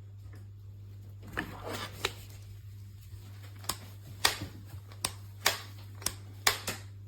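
Plastic clicks from a double retractable dog leash's handle as its lock buttons are worked: about nine sharp, irregular clicks starting about a second in, over a steady low hum.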